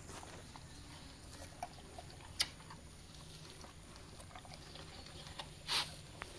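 Rottweiler eating chopped fruit from a stainless steel bowl: faint chewing and mouth sounds with scattered small clicks, and a louder short click near the end.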